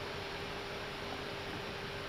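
Steady background noise in an Airbus A319 cockpit in flight: an even hiss of air noise with a faint steady hum underneath.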